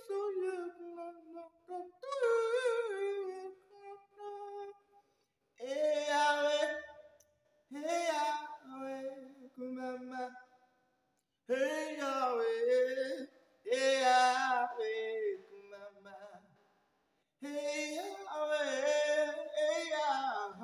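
A male ventriloquist singing a gospel song unaccompanied in a high voice for his monkey puppet. The singing comes in phrases a second or two long, with short breaks between them.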